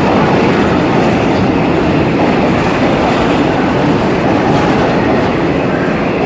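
Redbird subway garbage train rolling on the rails, a loud steady rumble of wheels and cars.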